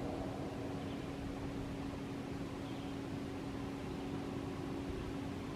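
Steady background hiss with a faint, constant low hum.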